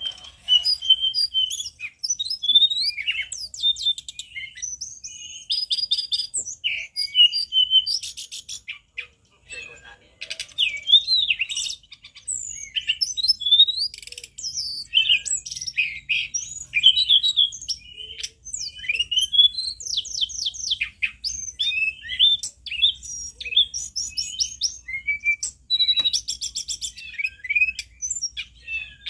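Hill blue flycatcher (tledekan gunung) singing a long, varied song of high whistled notes, quick up-and-down glides and rapid trills, with short pauses between phrases.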